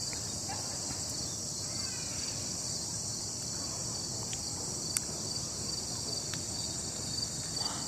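A chorus of crickets and other insects trilling steadily from the forest below, a high, even, pulsing drone, with a few faint clicks.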